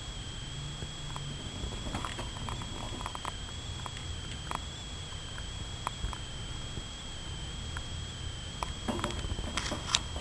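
Hamster gnawing on a seed treat stick: small scattered crunching clicks, a cluster about two seconds in. A louder flurry of clicks and rustling comes near the end.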